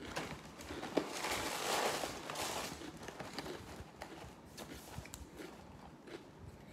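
Dry, crunchy sweetened corn-and-oat cereal being chewed, with the rustle of a cardboard cereal box being handled and turned around; a longer rustle from about one to three seconds in.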